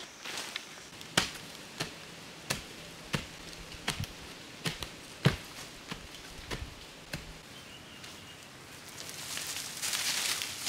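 A digging stick jabbed repeatedly into packed earth: about a dozen sharp, evenly spaced thuds, roughly one and a half a second, that stop past the middle. Near the end, a soft rustle of loose soil being scraped and scooped by hand.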